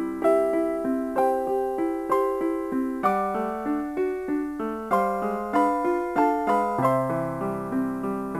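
Background music: a light melody of evenly paced notes on a keyboard instrument.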